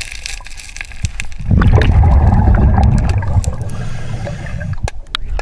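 A scuba diver's exhaled breath bubbling out of the regulator, heard underwater: a loud gurgling rush of bubbles that starts about a second and a half in and lasts about three seconds. A few sharp clicks come near the end.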